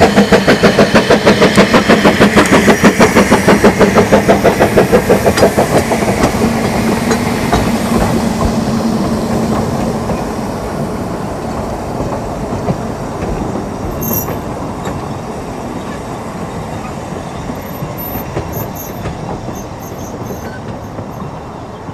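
Two narrow-gauge steam locomotives, a small saddle-tank engine piloting a double-Fairlie, pulling away with a train: rapid, even exhaust beats that fade out after about five seconds. Then come the carriages rolling past over the rail joints, the sound slowly dying away as the train leaves.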